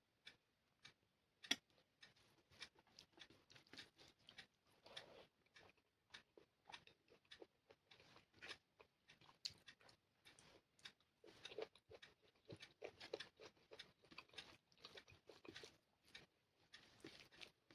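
Close-miked chewing and mouth sounds of someone eating chicken curry with rice: a steady string of soft wet smacks and small clicks, with one sharper click about a second and a half in.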